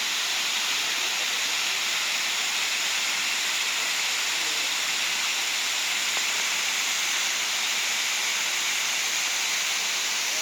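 Steady rush of falling water from a waterfall, an even hiss-like roar that holds at one level throughout.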